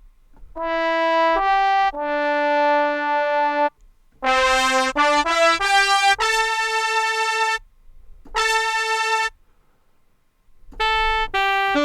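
Sampled brass instrument from an SF2 soundfont, played one note at a time on a keyboard: short phrases of held and quick notes with pauses between them, and a silent gap near the end.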